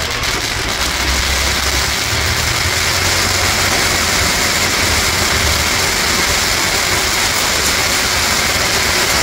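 Fireworks castle burning: a spinning wheel of fire and showers of sparks giving a loud, steady rushing hiss.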